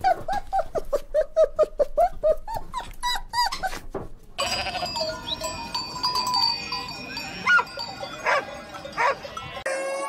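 A dog giving a fast run of short high barks, about four a second, for the first four seconds, followed after a brief break by a sheep bleating a few times.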